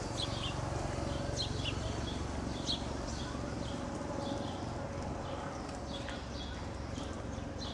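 Small birds chirping in short, repeated calls over a steady low rumble of outdoor background noise.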